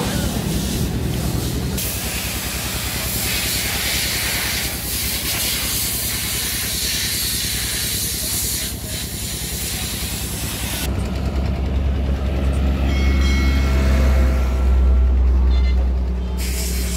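Hino FG truck's diesel engine idling with an even low pulse. A steady hiss joins it for several seconds, and in the last part a heavy low rumble takes over.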